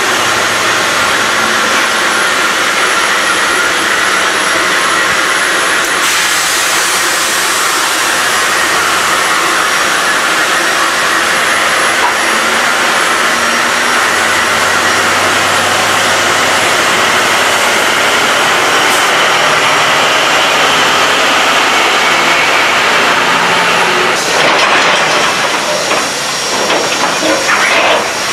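Steam locomotive (Royal Hudson 4-6-4 no. 2860) hissing steadily and loudly, heard from inside the cab. Near the end the hiss drops a little and turns uneven.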